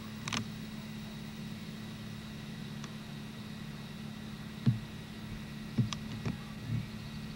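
Steady low hum with a faint high whine, the running noise of an old camcorder recording. A click comes just after the start, and a few soft handling thumps come from about two-thirds of the way in, the first the loudest.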